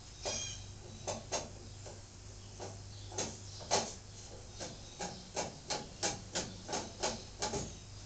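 A series of short knocks and clatters in a workshop, scattered at first and then coming at a steady pace of about three a second, over a steady low hum. There is a brief high squeak right at the start.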